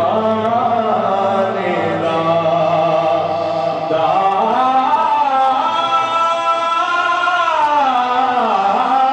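Male naat reciter singing an Urdu devotional naat into a microphone, holding long notes that slide and waver in ornamented melodic runs. A low steady drone sits under the voice for the first few seconds, then drops away.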